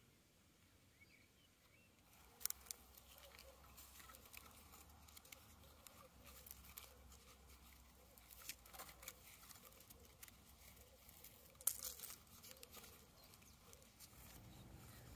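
Faint handling noise of a bone adze head being worked in the hands: scattered small clicks, scrapes and rustling, with two sharper ticks about two and a half and eleven and a half seconds in. The first two seconds are near silent.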